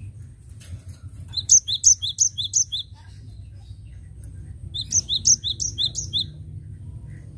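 Cinereous tit (gelatik batu) singing: two quick runs of a high, ringing two-note phrase repeated about four times each, a second and a half per run, with a short pause between them.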